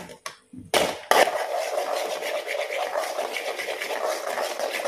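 A spoon scraping and stirring thick, crumbly almond paste around the bottom of an aluminium kadai: two knocks about a second in, then rapid, steady scraping. The paste is cooking in ghee and is kept moving so it does not catch on the bottom.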